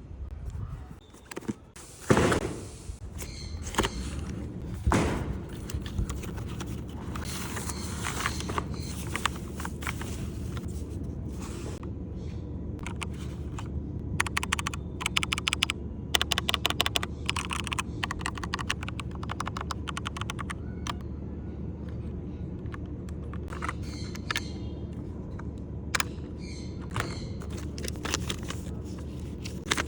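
Dr Luxur mechanical keyboard with clicky blue switches being typed on: scattered key clicks, then fast runs of clicks through the middle, over a steady low hum.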